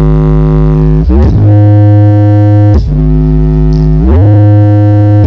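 Very loud synthesizer music from the SJP Audio truck-mounted sound system. It plays a heavy bass line of long held notes that slide to a new pitch every second or so.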